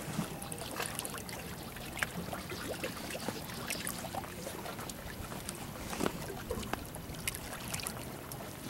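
Water gently lapping and sloshing against shoreline rocks, with scattered light taps and clicks throughout.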